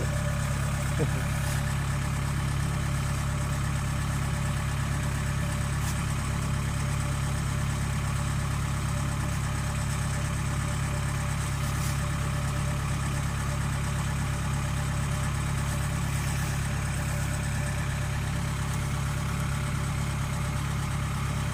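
Kubota rice combine harvester's diesel engine running steadily, a constant low drone that holds at one level without revving up or down.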